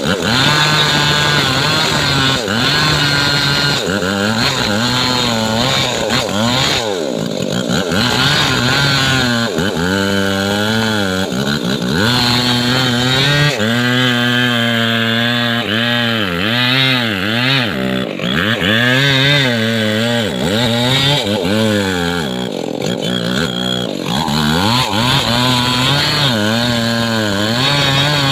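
Two-stroke chainsaw running hard while cutting trembesi (rain tree) wood, its engine pitch repeatedly dipping and climbing back as the chain bogs under load and frees up.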